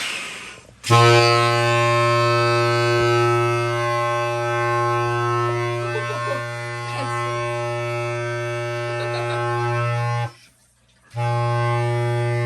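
Homemade PVC-pipe-and-balloon air horn blowing a long, loud, steady low note with many overtones. It breaks off for under a second near the end, then sounds again.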